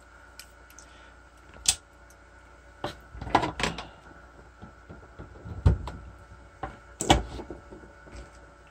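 Workbench handling noise: several sharp clicks and knocks with quiet gaps between them, as small parts and tools are picked up and set down.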